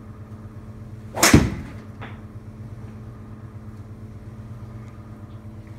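A 3-wood swung at a teed golf ball: a short swish about a second in that ends in a sharp crack as the clubhead strikes the ball, then a faint knock moments later as the ball hits the simulator screen. A steady low hum runs underneath.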